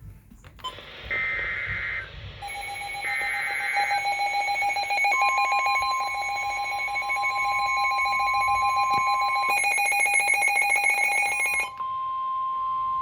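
Emergency Alert System alert: two short, screechy data bursts of the SAME header, then a long steady electronic alert tone with several tones layered together. About 11.7 s in it drops to a single steady high tone.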